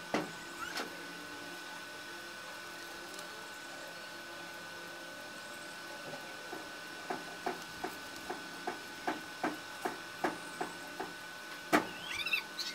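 Felt-tip marker colouring on cardboard: short scratchy back-and-forth strokes, about three a second, from about seven seconds in, with squeaky strokes near the end. A steady faint high tone sounds underneath.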